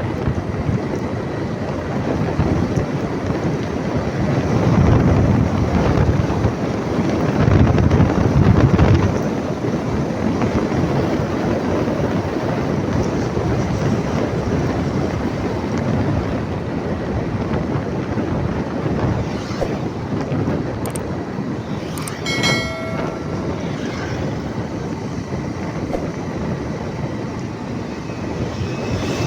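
Steady rumble of a moving vehicle with wind noise on the microphone, louder for a few seconds about 5 and 8 seconds in. A brief horn-like tone sounds about 22 seconds in.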